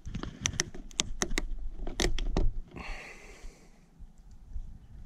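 Screw cap of a plastic motor-oil bottle being twisted open: a quick run of sharp plastic clicks, then a short hiss. Wind rumbles on the microphone underneath.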